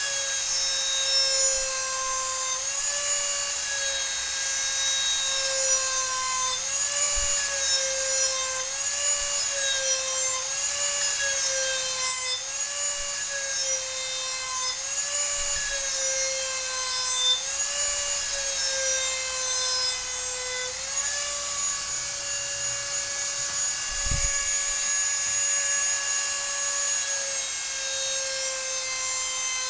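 Dremel rotary tool running at high speed, grinding the edge of a lawn mower blade, with a high-pitched whine. The pitch rises and falls about every two seconds as the tool is stroked back and forth along the edge, then holds steady from about two-thirds of the way through. A single low thump near the end.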